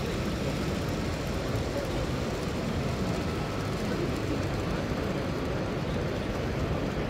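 Steady hubbub of a busy exhibition hall: many distant voices over a constant low background noise.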